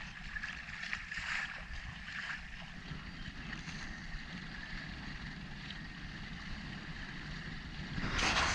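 Water rushing along the hull of an Investigator 563 trailer yacht under sail, with wind noise on the microphone. A louder rush of water and wind comes near the end.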